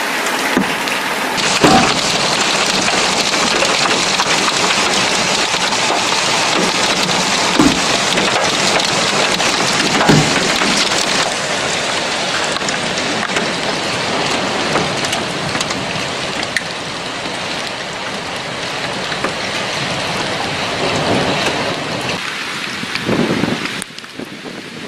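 Hail and heavy rain pelting down on asphalt and grass: a dense, steady hiss with a few sharper knocks of single stones striking. It drops away sharply near the end.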